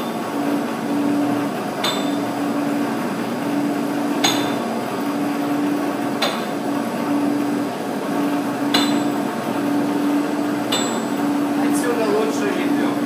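Electric heat cannon's fan blowing steadily with a low hum, while the rotating concrete pipe on its makeshift turning rig gives a sharp knock about every two seconds.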